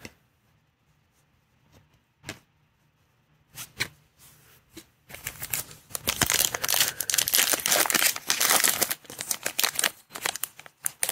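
A few light taps, then from about five seconds in, a foil trading-card pack from a Panini Mosaic football box crinkling steadily as it is handled and torn open.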